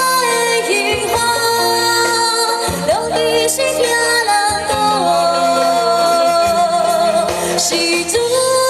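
Live band playing a Chinese pop song, with a woman singing the melody.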